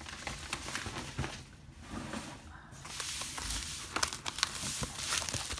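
Plastic poly mailer rustling and crinkling as it is handled, with a run of sharp crackles near the end as its sealed edge is gripped.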